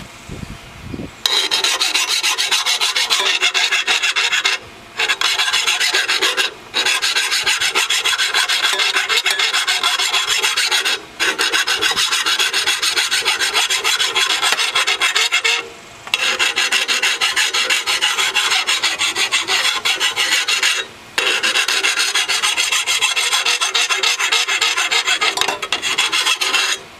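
Hand file rasping in quick strokes along the cutting edge of a Toro Recycler lawnmower's steel blade, sharpening a dull, chipped edge. The filing starts about a second in and stops briefly five times.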